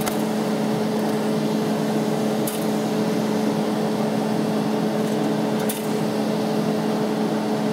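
Steady machine hum with a constant low tone. A couple of faint light clicks come as the toast is handled.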